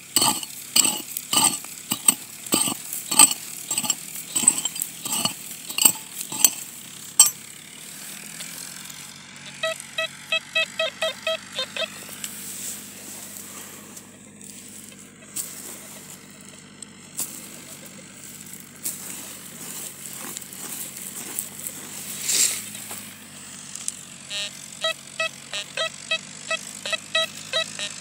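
A hand digging tool strikes into stony soil about twice a second for the first several seconds. Later a metal detector gives quick runs of short beeps, once around the middle and again near the end, as its coil passes over the hole and picks up the buried metal target.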